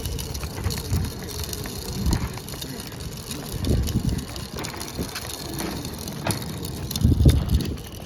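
Wind buffeting a handheld camera's microphone in irregular low gusts, loudest about two seconds in, around four seconds and near the end, with a few sharp knocks and a steady hiss.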